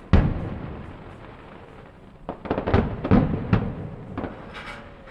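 Aerial fireworks bursting: one loud bang at the start that rolls away slowly, then a quick run of five or six bangs about two seconds in, another a little later, and a faint crackle near the end.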